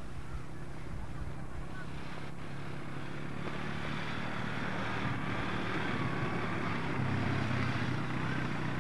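Quad bike (ATV) engine running steadily as it drives across the snow, getting gradually louder as it approaches.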